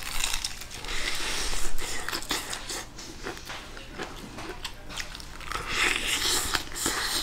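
Crispy fried chicken being bitten into and chewed close to the microphone: crackly crunching of the fried batter, loudest in two spells, about a second in and near the end.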